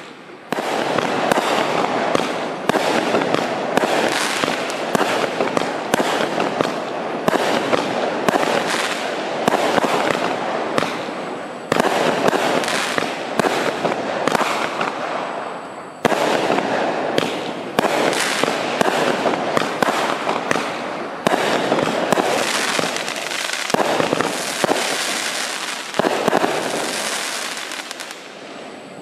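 A 25-shot, 26 mm consumer fireworks battery (cake) firing, a dense run of sharp bangs as the shells launch and burst overhead. The shots come in quick succession and die away near the end.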